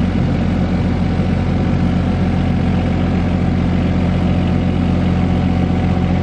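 Caterpillar 302.7D CR mini excavator's diesel engine running at a steady speed while its boom lowers a pickup truck bed, a low even drone with no change in pitch.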